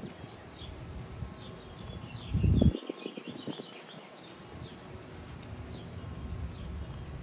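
Small birds chirping in short, high calls, bunched about three to four seconds in, over a low outdoor rumble. A loud low blast about two and a half seconds in is the loudest sound.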